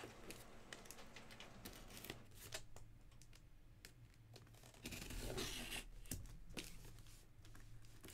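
Cardboard shipping box being handled and its packing tape slit and torn open, with scattered small knocks and clicks. A louder stretch of tearing comes about five seconds in.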